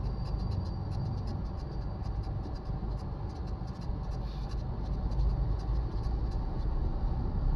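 Low, steady rumble of road traffic and vehicle engines, with many faint, irregular clicks over the top.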